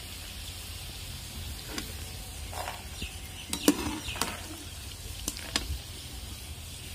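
A long slotted metal spoon scraping and clinking against an aluminium frying pan as fried maida snacks are scooped out of the oil, several scattered clinks with the loudest a little past halfway, over a faint steady hiss.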